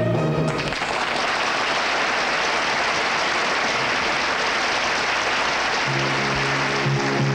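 A song ends in the first moment, followed by steady studio-audience applause; new music comes in under the applause about six seconds in.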